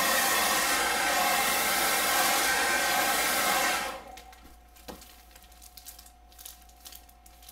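Hand-held hair dryer blowing, used to warm the plastic cover of a diamond painting canvas so its glue softens and the creases flatten. It runs steadily and is switched off about four seconds in, leaving faint handling noises and a single click.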